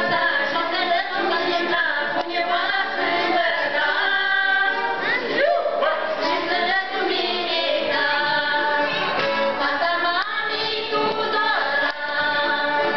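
A small women's folk choir singing a Moldovan folk song together in harmony, in full open voices.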